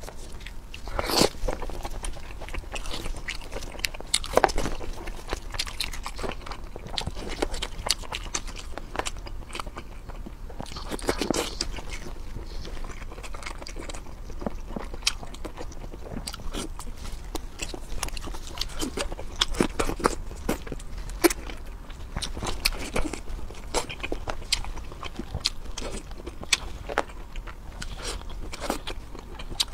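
Close-up eating sounds of a person chewing and biting into food, with many irregular sharp clicks and smacks, some clusters louder than others.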